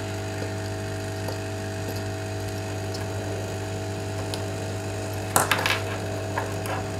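A steady low electrical hum, with a short cluster of small sharp clicks and scrapes about five and a half seconds in as fingers and a tool work on the opened iPod Nano's metal casing.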